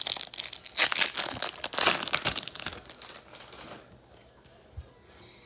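Foil wrapper of a Topps Chrome baseball card pack crinkling as it is opened by hand, a dense crackle that dies away about four seconds in.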